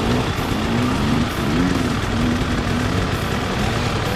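Dirt bike engines running, with the engine note rising and falling again and again as the throttle is worked.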